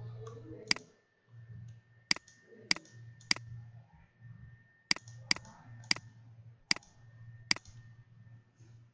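Computer mouse buttons clicking, about nine sharp single clicks at uneven intervals, over a steady low hum.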